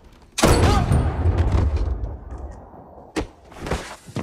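Movie action sound effects: a loud bang about half a second in with a low rumbling tail, then two short sharp knocks near the end.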